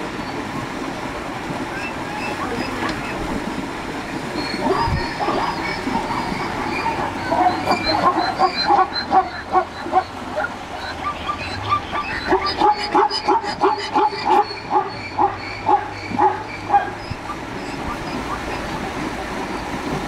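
Plains zebras barking their yelping contact calls over the steady rush of the river. The barks start about four seconds in and come fastest in a quick run near the middle to later part, about two a second.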